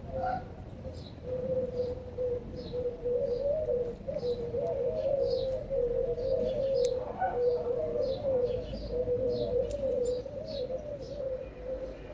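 Birdsong: a low, rolling, wavering coo that carries on almost without a break, over short high chirps repeated about twice a second.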